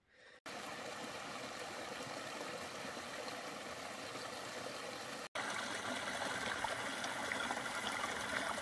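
Small mountain brook running and splashing over mossy rocks in little cascades, a steady rush of water. Just past halfway it cuts abruptly to another stretch of the flowing water, a little louder.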